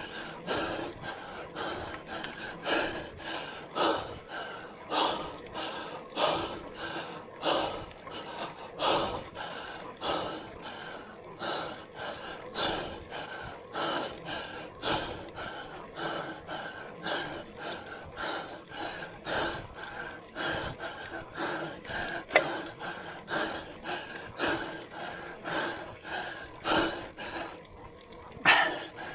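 A cyclist breathing hard under effort on a steep uphill climb, loud rhythmic breaths roughly once a second.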